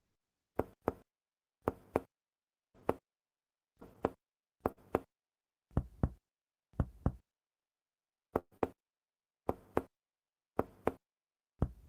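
Percussion of the abdomen: a finger tapping on a finger laid on the belly, short dull knocks mostly in pairs, about one pair a second, with a brief pause about two thirds of the way through. This is radiating percussion of the abdomen, done to map the dullness that free fluid from ascites gives.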